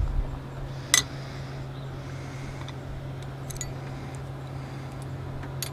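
Metal hand wrenches being handled and knocked together: one sharp clink about a second in, then a few lighter clicks, over a steady low hum.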